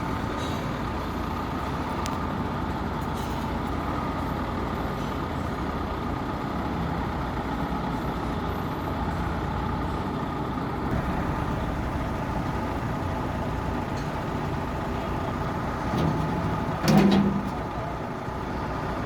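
Heavy machinery engine running steadily under load, with a brief louder sound near the end: a sharp hit followed by a short low tone.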